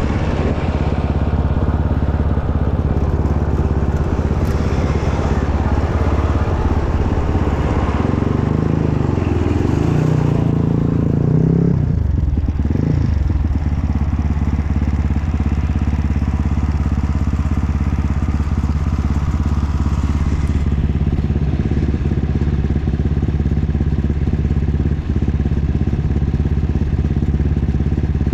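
Off-road dirt bike engine running throughout, its note rising and falling for a few seconds about a third of the way in, then holding steady.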